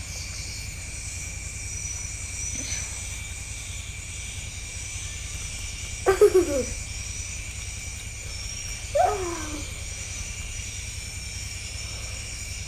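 A child's voice making two short moans that fall in pitch, about six and nine seconds in, over a steady low hum and high hiss.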